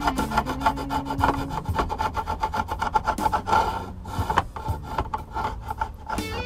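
Fret-end file rubbed along the edge of a guitar fretboard, rasping over the protruding ends of the fret wires in a quick run of scratchy clicks as it crosses each fret. The strokes thin out about halfway through. The fret ends are being levelled flush with the fretboard edge.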